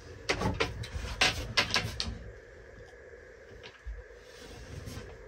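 A few faint clicks and knocks in the first two seconds, then quiet room tone in a small enclosed space, with one soft low thump near the four-second mark.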